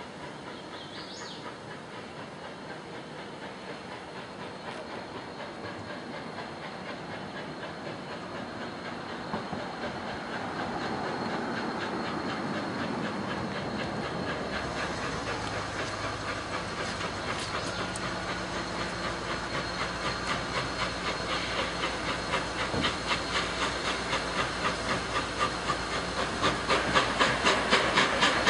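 Union Pacific 844, a 1944 Alco 4-8-4 steam locomotive, approaching under steam. A distant rumble and hiss grow steadily louder until its exhaust chuffs stand out as a loud, even beat near the end.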